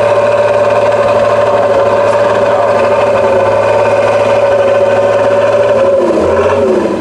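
Diesel engine of a Praga V3S 6x6 trial truck running under load at steady high revs as it climbs a sandy slope, its pitch dipping briefly and coming back up about six seconds in.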